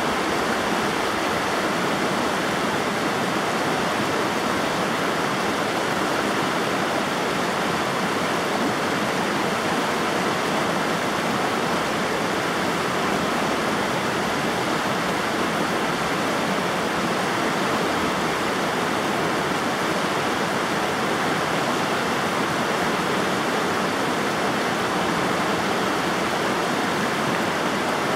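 River water flowing, a steady, even rushing with no change in level.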